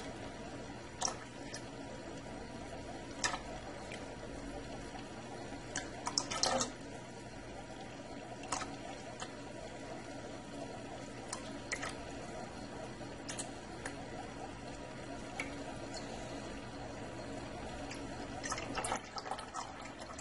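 Aquarium gravel siphon drawing water and substrate up its tube: a steady trickling flow with scattered sharp clicks, in a cluster about six seconds in and again near the end.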